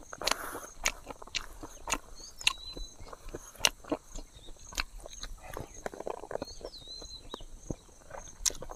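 A person chewing food close to the microphone, with irregular wet mouth clicks and smacks. A cricket or other insect chirps steadily in the background, and a bird gives a short whistled call twice.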